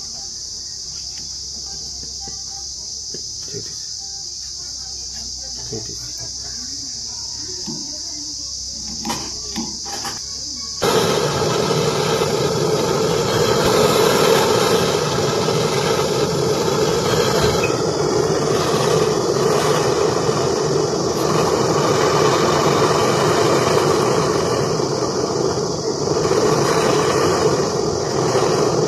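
Steady high insect chirring, with a few clicks, then about eleven seconds in a gas torch is lit and burns with a loud, steady hiss until near the end while a refrigerator's gas pipe and filter are brazed.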